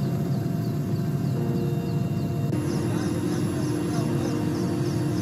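Steady drone of a helicopter's engines and rotor heard from inside the cabin, with a faint rhythmic pattern over it; the tone changes abruptly about two and a half seconds in.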